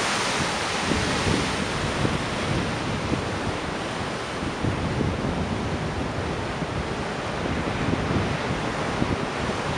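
Steady wind buffeting the microphone over the rush of sea water around the boat.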